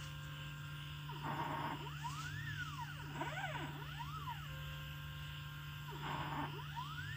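Stepper motors of a small hobby-built CNC pen plotter whining as it draws PCB traces, the pitch sweeping up and down in arcs as each move speeds up and slows down, over a steady low hum. Two short hissy rasps come about a second in and about six seconds in.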